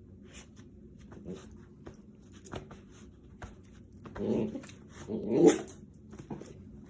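A dog growling, with two louder growls about four and five seconds in and quiet clicks and scuffs before them.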